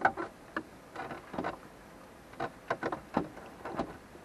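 A dozen or so irregular clicks and light knocks of dashboard trim pieces being handled and worked loose around a 1991 Mazda Miata's gauge cluster.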